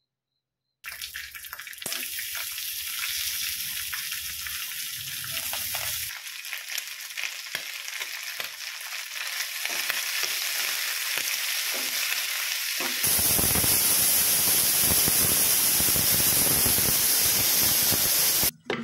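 Pieces of buffalo tripe (botti) sizzling as they fry in a pan, stirred with a wooden spatula, heard in a few cut-together takes. About 13 seconds in, a louder, steadier hiss takes over until just before the end.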